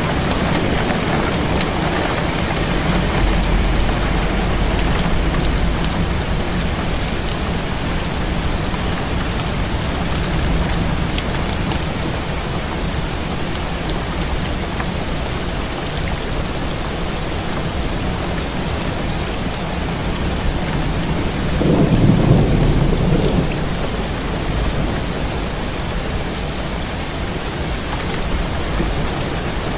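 Heavy rain beating steadily on a window pane, with a low thunder rumble early on and a louder roll of thunder about two-thirds of the way through.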